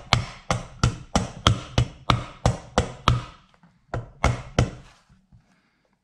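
A hammer tapping a key lock tumbler into a truck's chrome exterior door handle, with sharp strikes at about three a second. There is a short pause a little past halfway, then three more taps before they stop.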